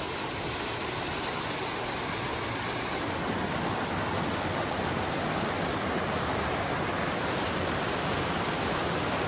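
Loud, steady rush of a waterfall cascading over rocks into a plunge pool, heard close up.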